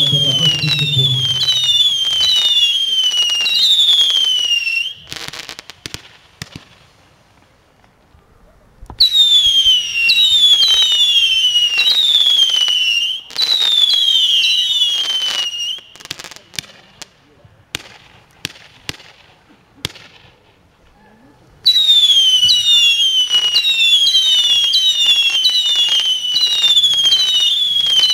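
A consumer firework battery ("Grand Spectacle") firing whistling shots: runs of piercing whistles, each sliding down in pitch, about one and a half a second. The runs are broken twice, around 5 to 9 s and 16 to 22 s, by stretches of scattered sharp cracks and pops.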